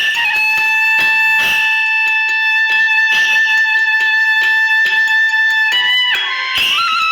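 Background music: long held melodic tones, violin-like, that change pitch near the end, over a steady beat.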